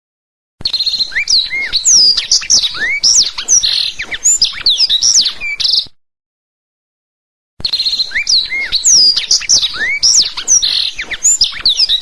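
Black-throated canary (blackthroat) singing: a fast, varied song of rising and falling whistled notes mixed with buzzy trills, in two identical bouts of about five seconds each, separated by a silent gap of about a second and a half, the same recording played twice.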